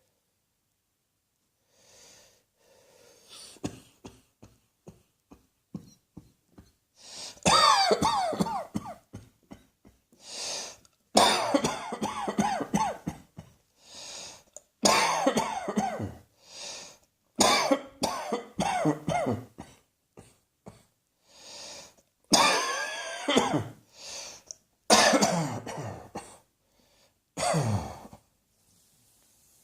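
A person coughing in repeated fits. A run of faint short coughs starts about four seconds in, then come seven loud fits of several coughs each, a couple of seconds apart, with quieter sounds between them.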